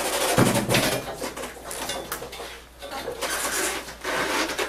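Clatter and shuffling as a wheelchair is rolled into place behind a person standing in leg braces: a thump about half a second in, then scattered clicks, knocks and rubbing.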